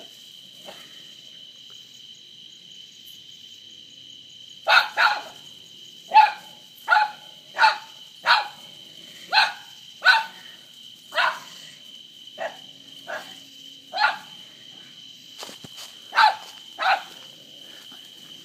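Small terrier barking at a cornered opossum: a run of about fifteen short, sharp barks, roughly one a second, starting a few seconds in. A steady high-pitched chorus of night insects runs underneath.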